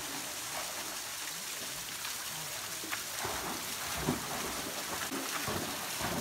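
Steady rush of a small waterfall and stream running into a pool, with a dog splashing as it runs through the shallow water, the splashing picking up in the second half.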